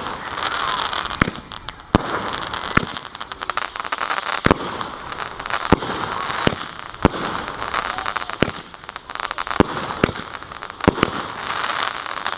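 Consumer firework cake, the 'Blonde Joke', firing a repeating volley: sharp bangs at roughly one a second over continuous crackling and hissing.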